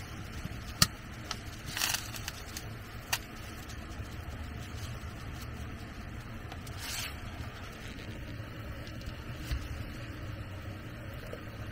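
Paper bag rustling, with a few light clicks and two brief scrapes, as powder is poured from it into a simmering pot. A steady low rumble runs beneath.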